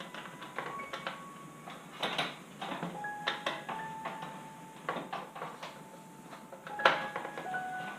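Hand tools working on motorcycle parts: an irregular string of metallic clicks, knocks and clanks, the loudest about two seconds in and near seven seconds, with brief ringing tones between them.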